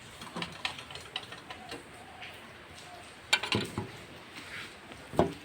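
Irregular clicks and knocks: a scatter of light taps in the first two seconds, then two louder knocks, about three and a half seconds in and near the end, over a steady background hiss.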